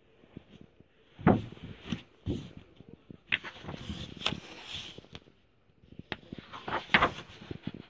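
A paperback picture book handled and opened by hand: paper rustling as the cover and first pages are turned, with scattered soft knocks and two louder thumps, about a second in and near the end.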